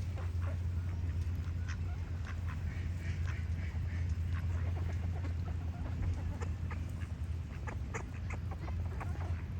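Ducks quacking in quick, repeated short calls over a steady low hum.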